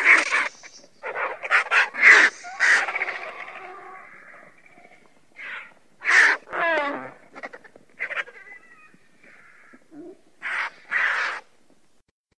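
Griffon vultures calling with harsh, rasping cries and hisses in a series of short calls. One longer wavering call falls in pitch about six seconds in, and two more calls come near the end.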